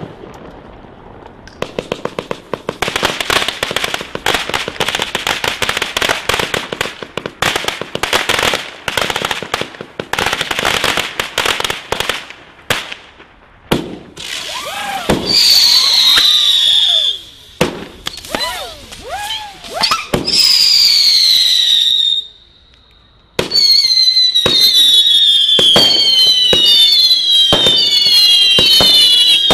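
Consumer fireworks from a display pack going off. First comes a long run of rapid crackling and small bangs. Then come shrill whistles that each fall slightly in pitch, and after a brief lull several whistles overlap amid sharp bangs.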